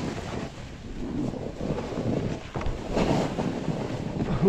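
Wind rushing over a helmet-mounted camera's microphone while a snowboard slides and carves through snow. The noise swells and fades several times as the board turns.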